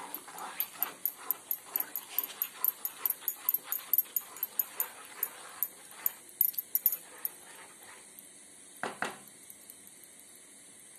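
A spatula stirring thick rice kheer in a metal pan: quick scraping strokes about four a second, stopping about seven and a half seconds in. One short knock follows about nine seconds in.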